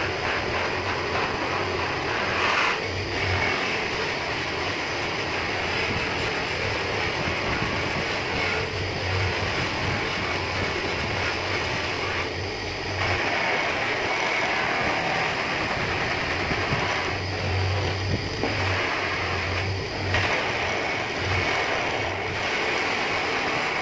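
Electric polishing motor running with its buffing wheel pressed against an aluminium motorcycle front wheel hub: a steady whirring, rubbing noise over a motor hum, shifting in tone now and then as the hub is moved against the wheel.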